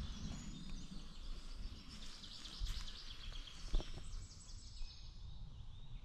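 Small songbirds singing, many quick high notes that are busiest in the middle, over a steady low rumble on the microphone. A single sharp knock sounds just before four seconds in.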